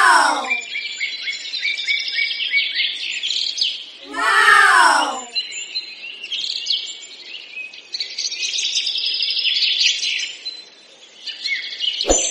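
Many small birds chirping and twittering steadily. Twice, about four seconds apart, a louder drawn-out call rises and falls. Near the end comes a sharp metallic tap as a coin is set down on the ground.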